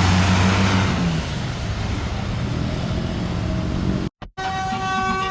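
A tour bus passes close by: engine drone and road noise, the engine note fading after about a second. Near the end, after a brief dropout, a bright multi-note tune of clear tones begins.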